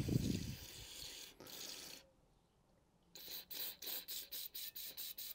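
A thin red cleaning line pushed back and forth through a Honda HHH25 hedge trimmer's carburetor passage, making quick rasping strokes about six a second, to scour dirt out of the jet. The strokes start about three seconds in, after a second of near silence.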